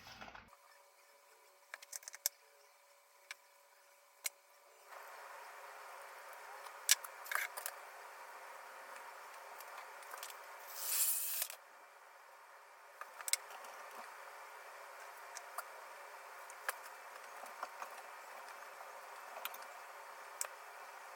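A tight can lid being worked open and the can handled: scattered sharp clicks and small knocks, with a short scraping hiss about eleven seconds in, over a faint steady hiss.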